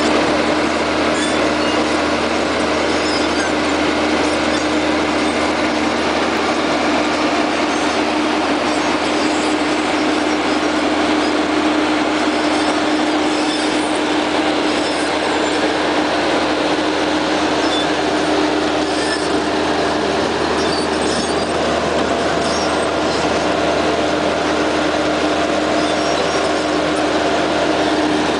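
Vermeer D24X40A horizontal directional drill's diesel engine running steadily at a loud level with a constant hum, while the rig drives on its steel crawler tracks with a mechanical clatter.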